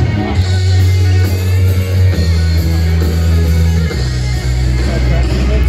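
Live rock band playing, guitar over deep sustained bass notes that change every couple of seconds.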